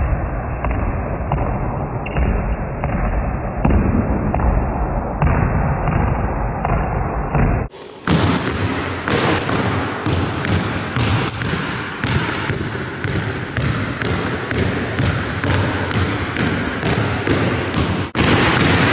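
Basketballs being dribbled, many irregular overlapping bounces, with short breaks about eight seconds in and near the end.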